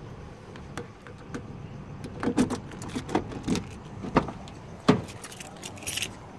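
Scattered clicks and knocks from handling things at a car's door and seat, with keys jangling. The loudest knock comes about five seconds in.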